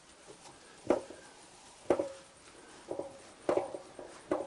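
Cloth wiping across a painted sheet-metal panel, with four sharp knocks, each ringing briefly, as the hand works over the thin metal. This is the drying wipe after a water-ammonia-alcohol degrease.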